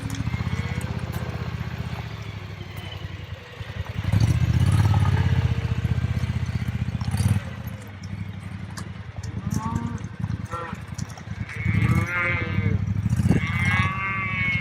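Cattle mooing several times, the longest calls coming near the end, over a steady low rumble that swells for a few seconds in the middle.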